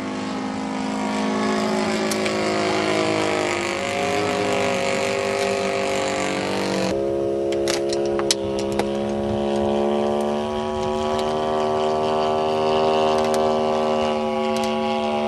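Model airplane's Evo 35 engine running steadily in flight, its pitch sinking and then rising again around four seconds in. A few sharp clicks about halfway through.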